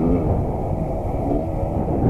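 Suzuki TS125's single-cylinder two-stroke engine running, its pitch rising and falling as the throttle is blipped.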